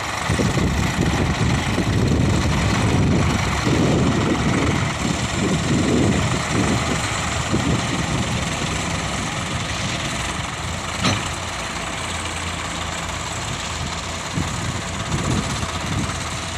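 Diesel tractor engines running, the nearest a Sonalika pulling a trailer. Its low engine note swells and falls repeatedly as it moves off under load, then settles to a steadier idle. A single sharp click comes near the middle.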